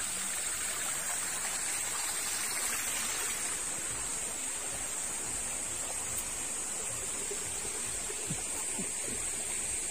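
Steady rush of water from a waterfall and its stream.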